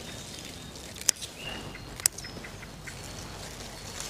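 Scissors snipping through perpetual spinach (chard) stalks: two sharp snips about a second apart, with a few small ticks after the second, over quiet outdoor background.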